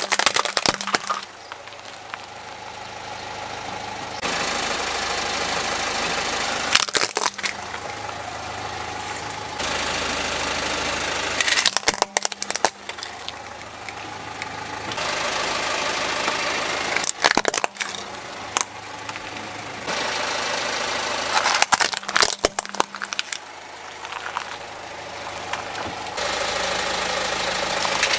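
Car tyre rolling over plastic toys and crushing them, about five times: bursts of sharp cracking and crunching plastic. Between the crushes the car's engine runs steadily.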